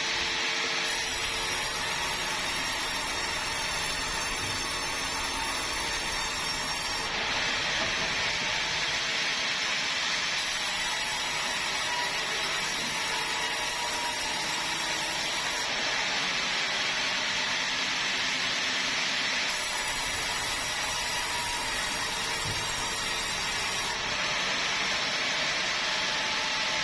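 Sawmill saw cutting bengkirai hardwood: a loud, steady hiss of blade through timber, with a thin high whine that comes in and drops out every few seconds.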